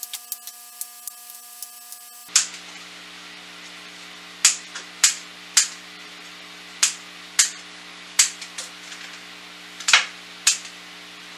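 Kitchen scissors snipping bread into cubes: more than a dozen sharp, irregularly spaced snips as the blades close, louder from about two seconds in.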